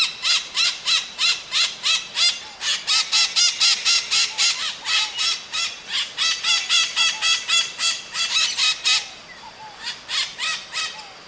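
Maritaca parrots calling: harsh, squawking calls repeated rapidly at about four a second, thinning to a few fainter calls near the end.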